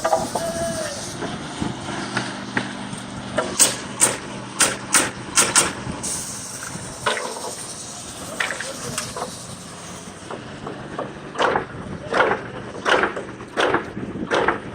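House-framing work: a run of sharp bangs of nails being driven, a few to a second, with a second series of knocks near the end, over an engine idling steadily.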